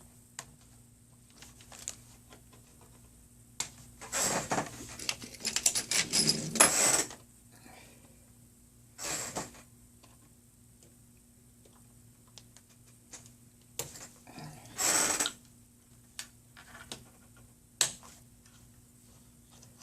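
Hard plastic clicks, scrapes and rattles as a Dell Latitude E6530 laptop is handled and its battery unlatched and slid out: scattered light clicks, with louder rattling bursts about four to seven seconds in, around nine seconds, and around fifteen seconds.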